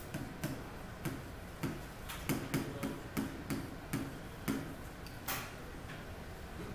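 Stylus tapping and clicking on the glass of an interactive touchscreen display while writing by hand: a run of about fifteen irregular light taps, with a brief scratchy sound about five seconds in.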